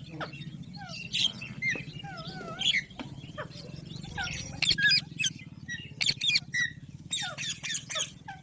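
A group of pet green parakeets chirping and squeaking, with short high calls and a few wavering whistles that come thicker in the second half, over a steady low hum.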